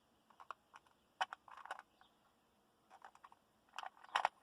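Plastic clothespins clicking against a small plastic food container as they are taken out one by one, squeezed open and clipped onto its rim: a run of short, sharp clicks with a brief rustle about a second and a half in, the loudest clicks near the end.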